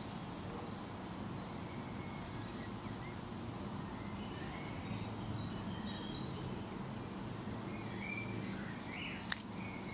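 Faint bird chirps over a steady outdoor background, with a single sharp click about nine seconds in.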